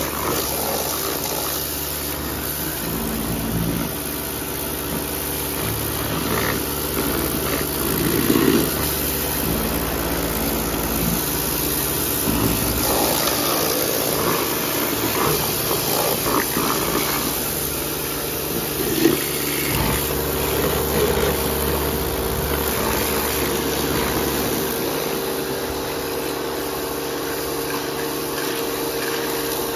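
Pressure washer running steadily, its jet of water spraying against the metal underside of a lawn mower deck, with the spray swelling louder now and then as the wand moves.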